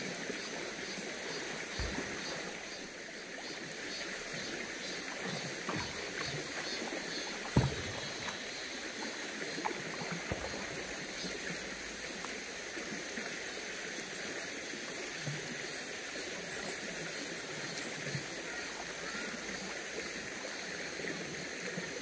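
Steady rush of a mountain stream's flowing water, with a few brief knocks or small splashes; the loudest is a sharp one about seven and a half seconds in.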